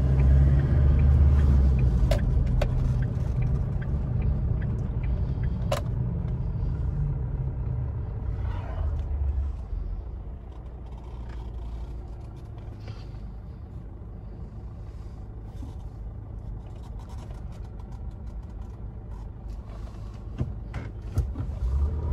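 Low engine and road rumble heard inside a car's cabin, quieting to a steady idle hum about ten seconds in as the car comes to a stop in traffic. A few short clicks stand out.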